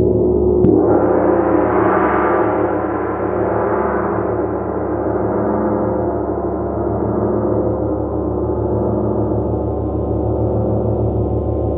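Gong struck and left ringing: a fresh stroke less than a second in swells into a loud shimmering wash over a steady low hum. It fades slowly, then stops suddenly near the end as it is damped.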